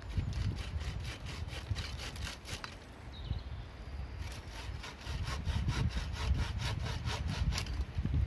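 Hand saw cutting through a wooden branch in quick, even back-and-forth strokes, in two runs with a short pause about three seconds in.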